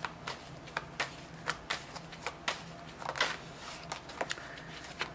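A deck of tarot cards being shuffled by hand: irregular soft card slaps and flicks, about two a second, with a brief rustle a little after three seconds.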